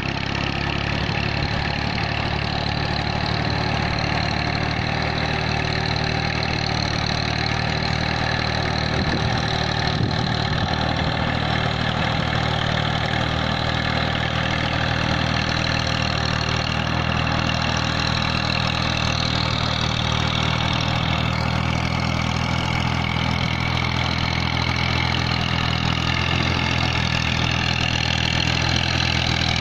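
Massey Ferguson 240 tractor's three-cylinder diesel engine running steadily under load as it pulls a plank leveller through a flooded rice paddy. It grows a little louder and brighter near the end as the tractor comes closer.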